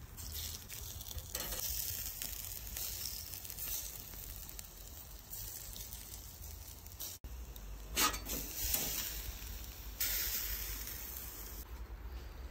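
Steak sizzling on a stainless steel grill grate over hot charcoal, a continuous crackling hiss with a brief break about seven seconds in.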